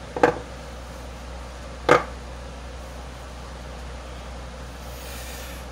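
Two sharp clacks about a second and a half apart as parts of a small blower fan motor are handled and set on a workbench, then a faint rustle near the end. A steady low hum runs underneath.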